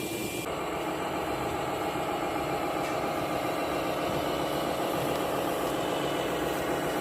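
A radio-controlled model vehicle running steadily with an engine-like hum. The sound changes about half a second in, then holds steady.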